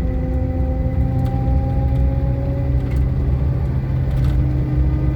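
2007 Chevy Silverado's rear differential whining under acceleration: several steady tones rising slowly in pitch over the truck's driving rumble. The whine is still there after topping up the gear oil, since the differential had been run nearly dry by a long-leaking pinion seal.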